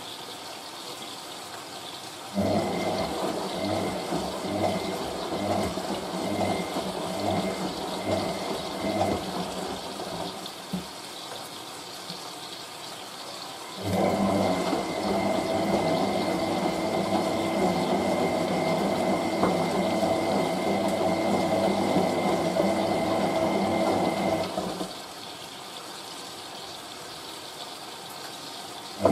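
Hotpoint 9530W washing machine taking in water for a rinse: water rushes in through the inlet valve in two long spells of roughly ten seconds each, with a thin steady whine over the rush, and the quieter turning drum of wet towels between them. A third spell of filling starts right at the end.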